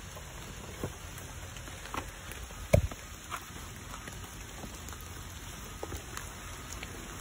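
Steady patter of rain, with a few light knocks and one heavier low thump about three seconds in as rubber boots are pulled off and dropped on wet asphalt.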